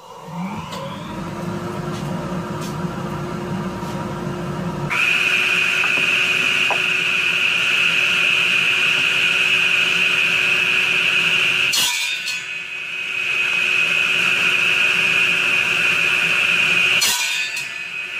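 Craftsman 10-inch radial arm saw: its motor spins up at the start and runs steadily with a high whine. About five seconds in a louder, higher-pitched noise joins. Two short noisy bursts come about 12 and 17 seconds in as the blade is pulled through a laminated wood strip.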